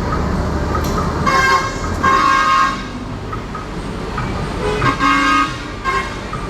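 A bus's multi-tone 'telolet' musical air horn sounding in three blasts, the second the longest, with bus engines and terminal traffic running underneath.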